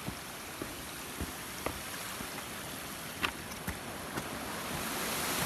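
Steady rush of a swollen mountain stream in flood, growing louder near the end, with irregular clicks and knocks of footsteps on loose stones and debris.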